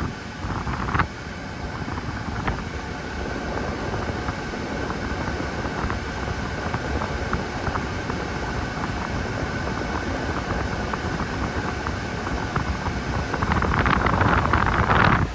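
Air-conditioner vent blowing air: a steady rush of airflow with a faint whine in it. There is a click about a second in, and a louder rush of air near the end that stops abruptly.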